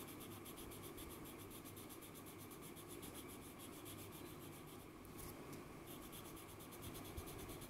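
Light green oil pastel rubbing on drawing paper as an area is coloured in: a faint, steady scratchy rubbing.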